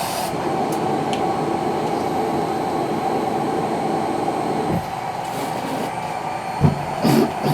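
Cough assist machine's blower running with a steady whir as it cycles air through the hose; the sound drops a little about five seconds in, and two short loud bursts come near the end.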